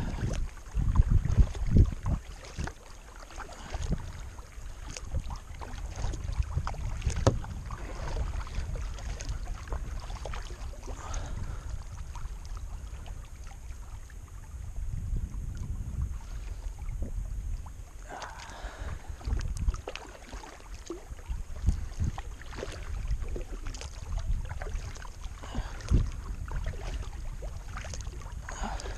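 Kayak paddle strokes in calm river water: the blade dips and pulls with splashes and drips, over low, uneven rumbles of wind on the microphone.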